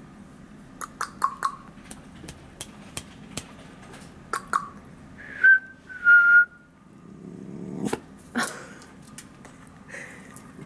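A person whistling two short, steady high notes, about five and six seconds in, to call a puppy's attention, amid scattered sharp clicks and brief chirping mouth sounds.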